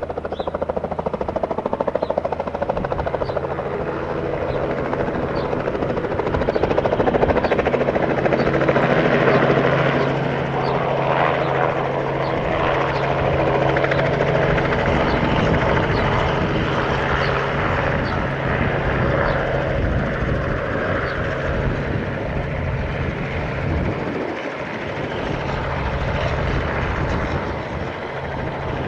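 Robinson R44 Raven II helicopter hovering and then flying low and slowly past: its main rotor and six-cylinder Lycoming piston engine run steadily, growing louder over the first several seconds and staying loud as it goes by.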